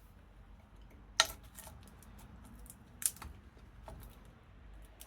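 A few sharp, separate clicks and knocks of metal hand tools being handled, with two louder ones about a second and three seconds in.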